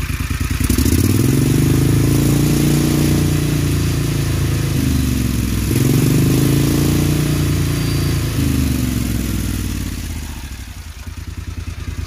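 John Deere XUV 625i Gator engine revved by hand at the throttle body: the revs climb about a second in and hold, dip, climb again about six seconds in, then drop back toward idle near the end. It runs smoothly.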